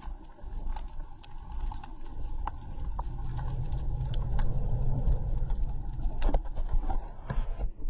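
Underwater sound picked up through a submerged camera: a low, muffled rumble of moving water, with scattered sharp clicks and pops throughout.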